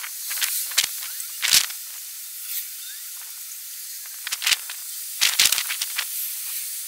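Storm wind giving a steady hiss with scattered sharp crackles, a cluster about a second in and another about four to five and a half seconds in.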